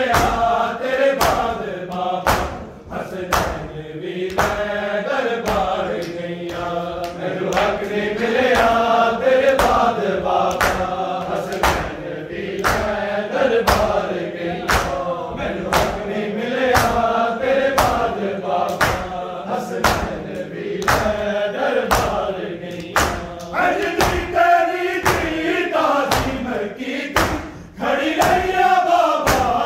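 Men's voices chanting a noha together, over a steady beat of open-handed slaps on bare chests (matam), a little faster than one slap a second.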